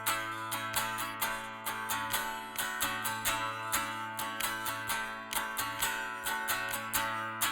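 Instrumental intro of a band's song: a guitar strummed in a steady rhythm over held low notes, with no singing.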